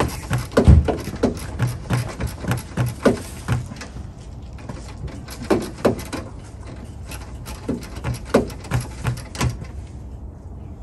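Hand tool working at the car battery in the engine bay, likely a ratchet wrench on the terminal or hold-down clamp: short strokes about three a second, in three bursts with pauses between.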